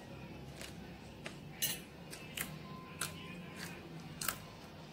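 A metal spoon clinking against a glazed ceramic plate while the salad is stirred, about eight sharp clinks at uneven intervals.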